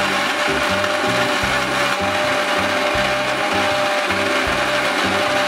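Electric mixer grinder running steadily at speed, grinding soaked red chillies and whole spices in vinegar into a smooth masala paste.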